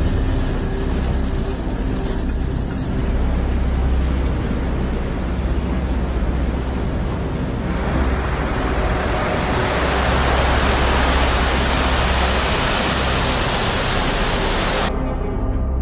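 Flash-flood water rushing: a loud, steady noise of torrential water and rain with a deep rumble underneath. Its character changes abruptly about three seconds in, again about eight seconds in, and near the end.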